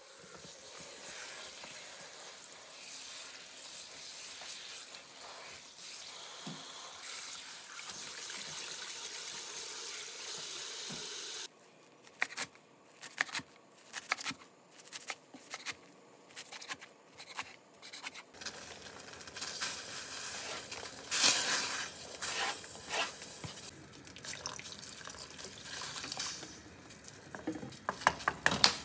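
Kitchen tap running steadily over leafy greens in a bowl in the sink. About eleven seconds in the water stops and a knife chops the greens on a cutting board in a run of quick, separate cuts. In the last third, water in a pot on the stove is stirred with wooden chopsticks, with scattered clicks.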